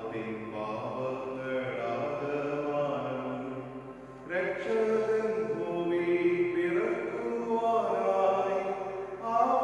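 A voice chanting a liturgical text in long held notes that slide from pitch to pitch, in two phrases with a short break about four seconds in.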